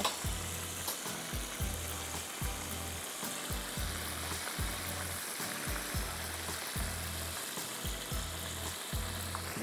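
Oil sizzling steadily as food fries in a pan, with soft background music and a low, even beat underneath.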